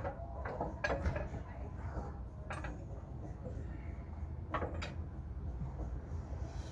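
Scattered clicks and knocks of metal parts being handled and fitted, over a low steady hum.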